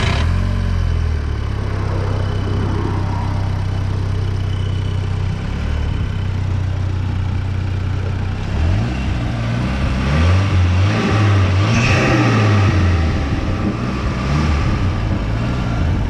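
Audi S3 8P's turbocharged 2.0 TFSI four-cylinder engine, just fitted with new spark plugs and coil packs to cure a misfire at idle, idling steadily and then revved up and down several times from about halfway through.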